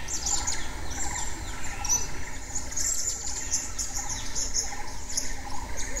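Many birds chirping and calling together: a busy run of short, high chirps, with a lower repeated call now and then.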